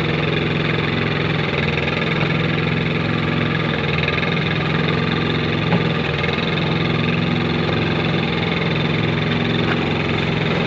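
Engine of a concrete kerb-extruding machine running steadily at an even speed.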